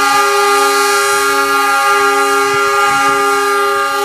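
Diesel locomotive's air horn giving one long, steady, loud blast as the train pulls away from the station.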